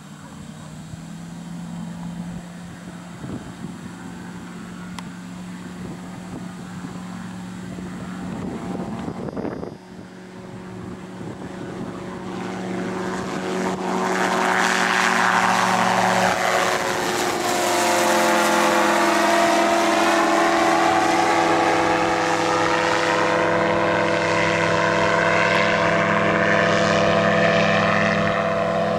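Xenon gyroplane's engine and pusher propeller running at take-off power, growing steadily louder as it rolls along the strip and lifts off. There is a sudden drop about ten seconds in. It then passes close overhead, the loudest part, with a swirling, phasing sound, and holds steady as it climbs away.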